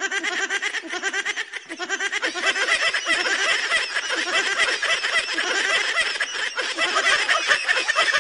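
Rapid, high-pitched snickering and giggling: a dense run of short squeaky rising-and-falling vocal sounds, several a second, with no bass, growing louder about two seconds in.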